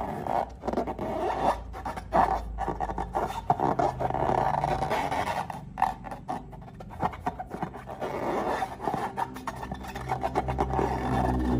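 Slime being worked by hand or tool: irregular sticky crackles and scraping.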